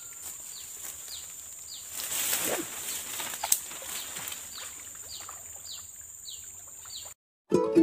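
Water splashing as a person wades into a shallow muddy pond, over a steady high insect drone and a short chirp repeated about twice a second. Near the end it cuts off and ukulele music begins.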